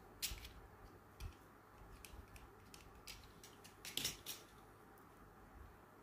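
Small handheld cutter clicking and snipping on thin headphone cable wire as it is cut and stripped: a run of faint, sharp clicks, the loudest cluster about four seconds in.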